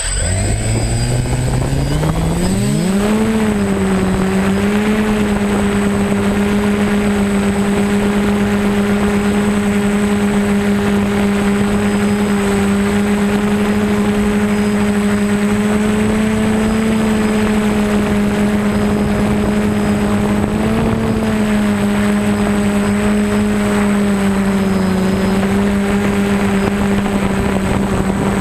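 DJI Phantom quadcopter's motors and propellers spinning up over the first few seconds, then holding a steady buzzing hum that wavers slightly in pitch as it flies, heard from the GoPro mounted right under it.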